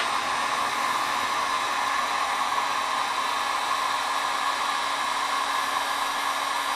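Heat gun running steadily: a constant rush of blown air with a faint motor hum underneath.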